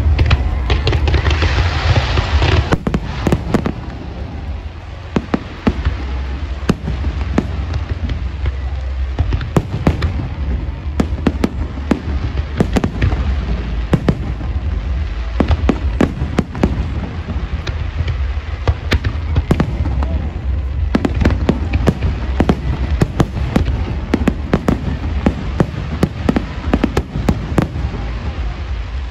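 Fireworks going off: a dense, irregular run of sharp bangs and crackles over a continuous low rumble, with a stretch of hissing crackle in the first couple of seconds.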